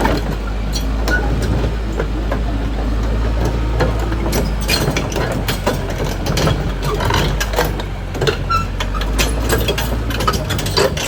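Caterpillar D6R XL bulldozer's diesel engine running steadily, with frequent irregular clanks and knocks from the machine as it moves.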